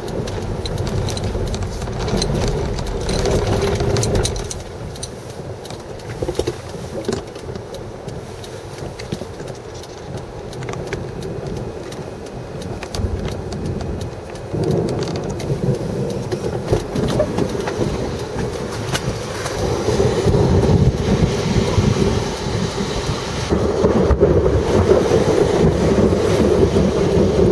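Low rumbling wind and vehicle noise with no clear pitch. It steps abruptly up or down a few times and is loudest near the end.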